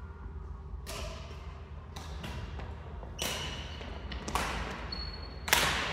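Badminton rally: rackets striking the shuttlecock about once a second, each hit a sharp crack that rings in the hall, with the last hit the loudest. A short high squeak comes just before the last hit.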